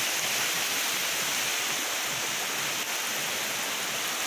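Floodwater rushing past steadily: an even, unbroken hiss of fast-flowing water.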